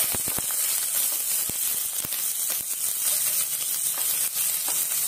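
Sliced onions dropped into hot oil, setting off a steady frying sizzle that starts suddenly, with a few clicks as they land.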